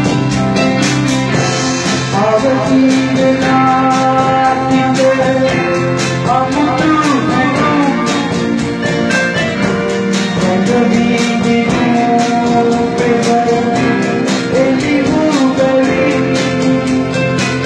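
A small live band playing: an electronic keyboard carrying the melody with pitch bends, over electric guitar and a drum kit keeping a steady beat.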